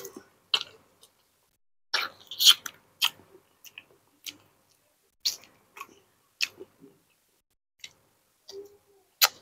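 Close-up eating sounds: a man chewing and biting grilled chicken off the bone, with irregular wet mouth smacks and clicks, the loudest about two seconds in.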